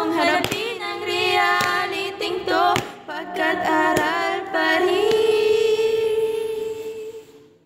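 A group of young voices singing a song in Tagalog together, ending on one long held note that fades out and stops about seven and a half seconds in.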